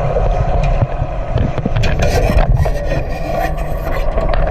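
Rumbling, churning water noise recorded underwater from inside a shark cage, with scattered knocks and scrapes, thickest a couple of seconds in and again near the end.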